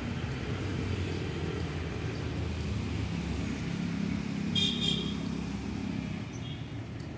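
Road traffic heard from a city park: a steady low rumble of passing vehicles, swelling as one passes about halfway through. A brief high-pitched sound stands out near the middle.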